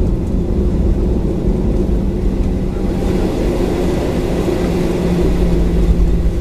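Inside the cabin of a Boeing 737-900: the CFM56-7B jet engines running, heard as a steady low rumble with a constant hum.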